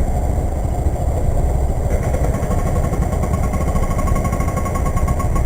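KTM RC 125's single-cylinder four-stroke engine running steadily during a ride. A steady whine joins about two seconds in.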